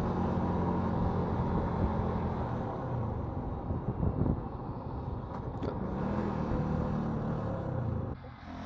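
Motorcycle engine running at a steady cruise, with wind rushing over the helmet-mounted microphone. The engine note falls away near the end as the bike slows.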